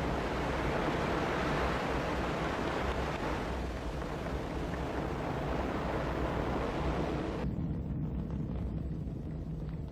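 Ariane 5 rocket lifting off: a steady rushing roar from its engines and boosters. About seven and a half seconds in, the hiss drops away abruptly, leaving a low rumble.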